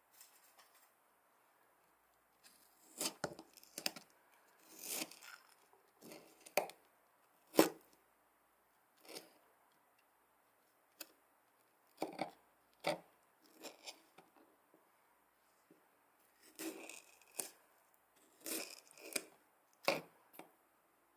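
Kitchen knife cutting into a tomato on a plastic cutting board: irregular crisp slicing and sharp taps of the blade, in short clusters with pauses between.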